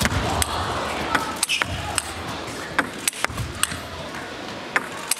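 Table tennis rally: the ball clicking sharply off bats and table in quick, irregular succession.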